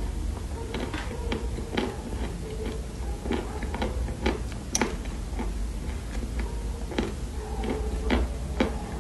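Dried Chinese loess clay crunching as it is chewed, close to the microphone: sharp, irregular crackles about two a second over a low hum.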